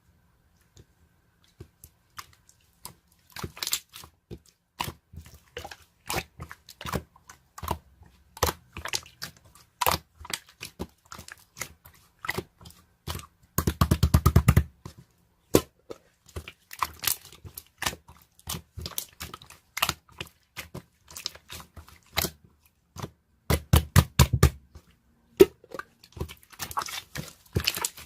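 Irregular close-up handling noise: scattered crinkling, crackling and clicking, with two bursts of fast, even rattling strokes, one about halfway through and one a few seconds before the end.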